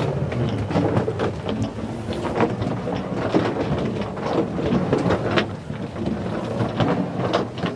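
Foley of a wheeled suitcase being pulled along while walking: a continuous rolling rumble of the wheels with many small irregular clicks and knocks, easing off near the end.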